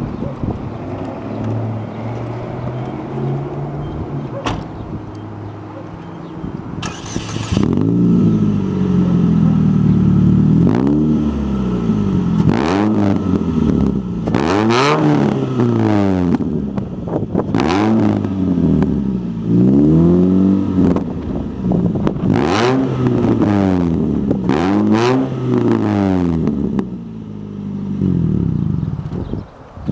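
Supercharged 2006 Chevy Cobalt SS's 2.0-litre four-cylinder, fitted with an aftermarket header, 3-inch downpipe and Revolution muffler, idling and then free-revved over and over, each rev rising and falling back about every two seconds before it settles to idle near the end.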